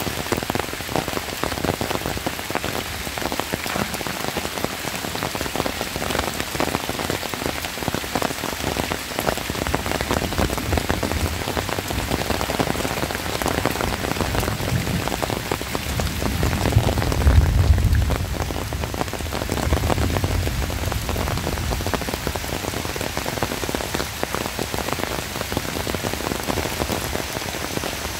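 Heavy rain falling steadily, with a dense scatter of drops striking close by. Just past halfway a low rumble swells up twice for a couple of seconds each; the first swell is the loudest moment.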